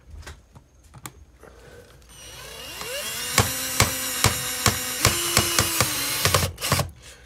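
Cordless drill driving a screw into a window air conditioner's mounting bracket: the motor whines up in pitch, then runs steadily for about three and a half seconds with a regular clicking of a few clicks a second, dropping in pitch partway through before stopping.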